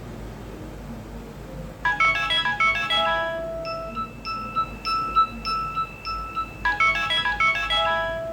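A Nokia 2760 mobile phone's loudspeaker playing a Nokia 6030 ringtone melody. It starts about two seconds in with a quick run of high notes, moves into a slower stretch of repeated notes, and the quick run comes back near the end.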